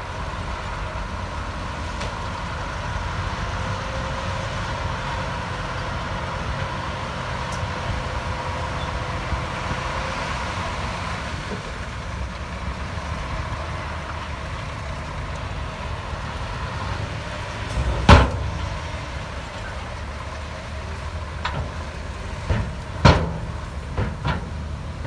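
Heavy earthmoving machinery running with a steady low engine rumble. One loud, sharp knock comes about three-quarters of the way through, and a few more follow near the end.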